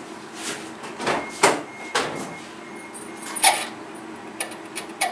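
A few separate clicks and knocks from the car, about a second apart, with a faint steady high beep for a couple of seconds in the middle.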